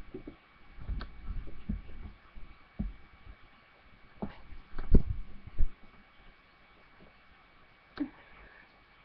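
Muffled low thumps and knocks at irregular intervals, the loudest about five seconds in and another single knock near the end, from people eating slices of dry bread close to the microphone.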